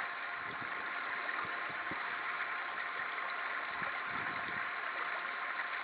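Soft, irregular scratching of a striped skunk digging in soil, a few scrapes a second, over a steady hiss with two faint steady tones.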